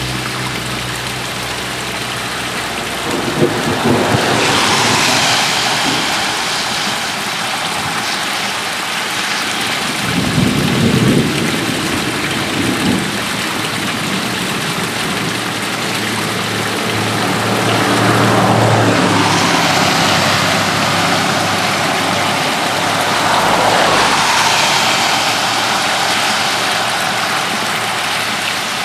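Steady rain and running storm water, with cars passing on the wet road: three swells of tyre hiss, one a few seconds in and two in the second half, and a low engine hum near the start and in the middle.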